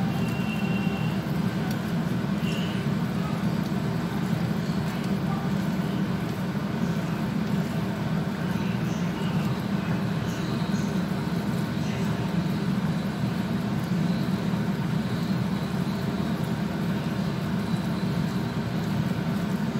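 Steady low hum of running machinery at an even level.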